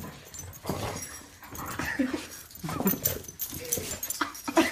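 A dog vocalizing while play-wrestling: a string of about four short calls that bend up and down in pitch.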